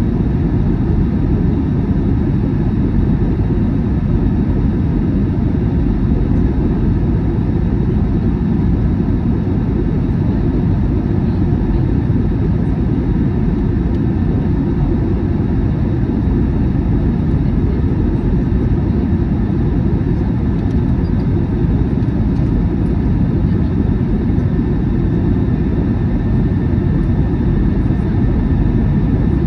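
Steady cabin roar of an Airbus A321 on approach, heard inside the cabin beside the wing-mounted jet engine: engine and airflow noise heaviest in the low end, with faint steady whining tones above it.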